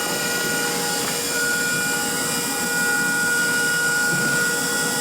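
Blue Elephant CNC router running, with a steady high-pitched spindle whine of several held tones over an even hiss of machine and cutting noise.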